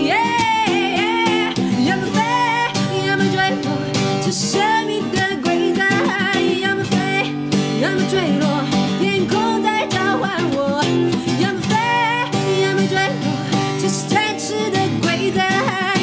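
A woman singing a Mandarin pop song's chorus to acoustic guitar accompaniment, her held notes wavering with vibrato.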